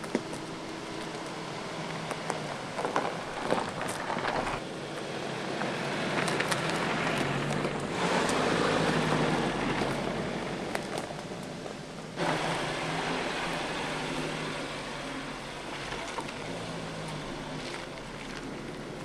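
A 2019 Suzuki Jimny's 1.5-litre four-cylinder petrol engine running as the vehicle drives over a rutted dirt track, with its tyres crunching over soil, twigs and stones. The sound changes abruptly a few times and is loudest near the middle.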